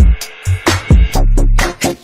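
Background pop music with a beat of separate drum hits and a deep bass line, with no singing in this stretch.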